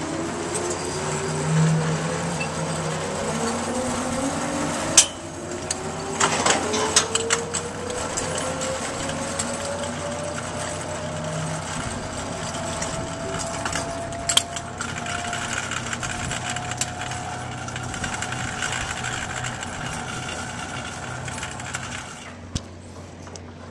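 Zipline trolley pulleys running down steel cables: two overlapping whines that rise slowly in pitch as the riders pick up speed. A few sharp clicks or knocks come in between.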